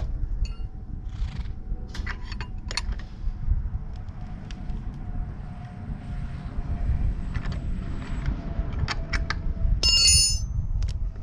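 Scattered clicks and clinks of metal being handled, with one bright ringing metal strike about ten seconds in, over a low rumble of wind on the microphone.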